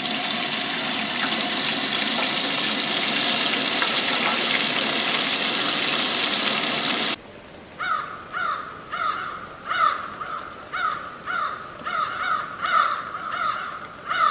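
A steady, loud rushing hiss from the camp stove with the cast iron Dutch oven on it, which cuts off abruptly about seven seconds in. It is followed by a bird calling over and over, about two short calls a second.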